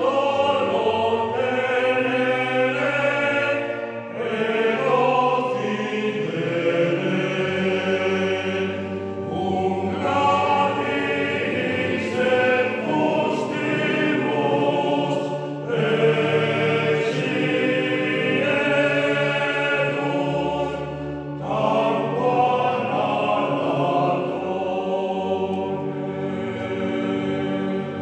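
Male vocal ensemble singing unaccompanied sacred choral music in several parts, in held phrases with short breaks between them, echoing in a stone cathedral.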